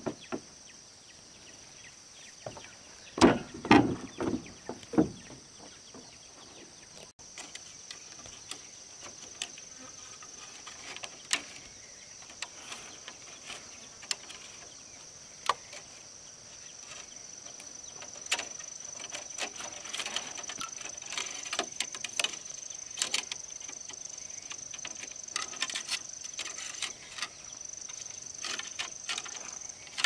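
Bamboo and wood being worked by hand: irregular knocks and taps, with a group of heavier thuds about three to five seconds in, over a steady high-pitched drone.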